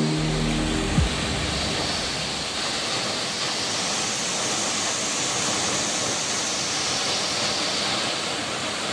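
Steady rushing of the Takapala waterfall, an even hiss of falling water. The tail of background music cuts off about a second in.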